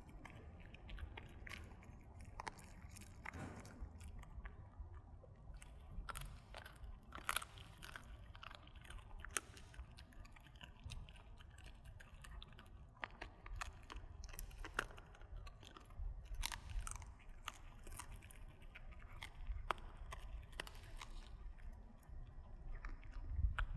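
A dog chewing dried duck bones, with irregular sharp crunches and cracks as it bites down.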